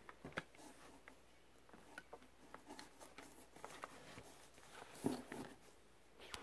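Quiet handling noise from a plush Furby toy being held and set down on a wooden shelf: scattered light clicks and soft rustles, with a louder rustle about five seconds in.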